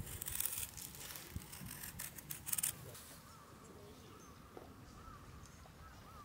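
Knife blade shaving a wooden stick into curls: a run of short scraping strokes. About three seconds in these stop, leaving a faint background with repeated short chirps.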